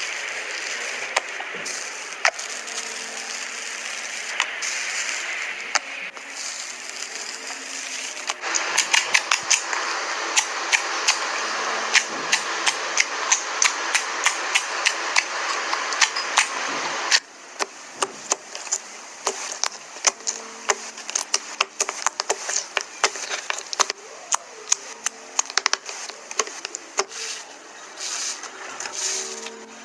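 Slime being squeezed, stretched and poked by hand, making rapid irregular clicks and pops. A steady hiss runs under it and cuts off suddenly about halfway through.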